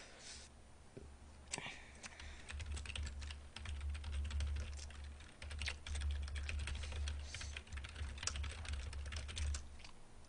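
Computer keyboard being typed on: quick, irregular keystrokes that start about a second and a half in and stop shortly before the end.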